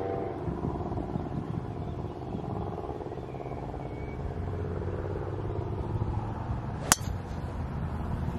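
A golf club striking a ball off the tee: one sharp crack about seven seconds in, over a steady low rumble.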